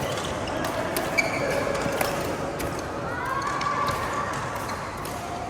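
Badminton rally: several sharp hits of rackets on the shuttlecock and players' footwork on the court floor, over a steady background of voices.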